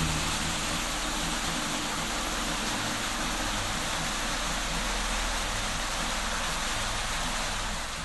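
Water pouring off an artificial rock waterfall and splashing down in a steady, even rush.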